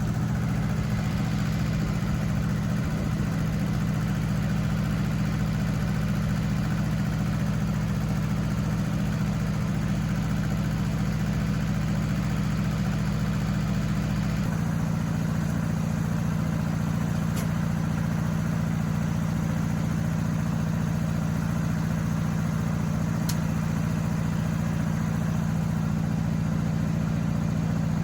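An engine running steadily at idle, its low tone shifting about halfway through.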